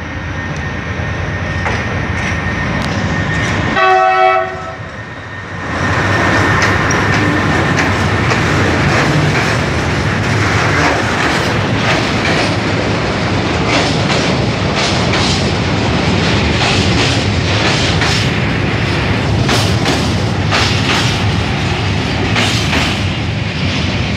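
MÁV class 478 diesel locomotive hauling a freight train past the platform, with its engine running as it approaches. It gives a short horn blast about four seconds in. Then a long string of open freight wagons rolls past, its wheels clicking over the rail joints.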